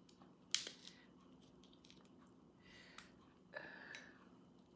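Faint eating sounds: chewing and soft handling of cooked lobster tail shell, with one sharp click about half a second in and a short noisy mouth sound a little after halfway.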